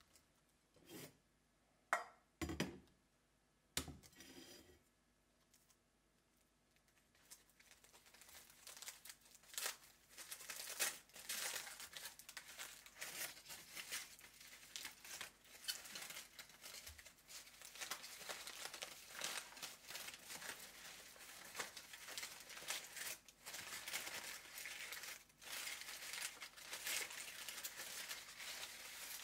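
Aluminium foil crinkling and tearing as it is peeled off a baked sweet potato, continuous from about seven seconds in. A few short knocks come first.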